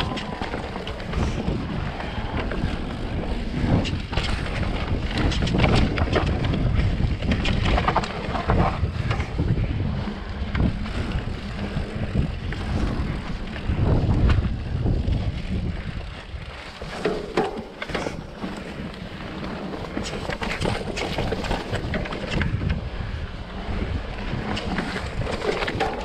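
Mountain bike running fast down a dirt trail: wind rumbling on the camera microphone and tyres rolling on dirt, with frequent clatters and knocks as the bike goes over roots and rocks.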